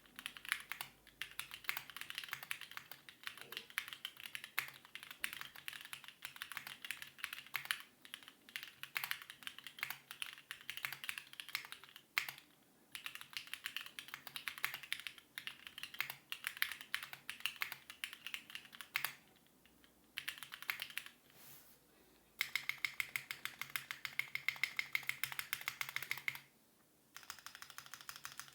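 Continuous fast typing on an Etcetera65 prototype mechanical keyboard, built plateless with stock Gateron Yellow linear switches and GMK keycaps: dense runs of keystroke clacks broken by a few short pauses.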